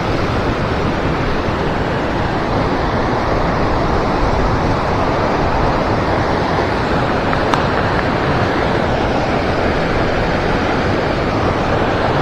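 Steady rush of flowing river water, with one faint click about seven and a half seconds in.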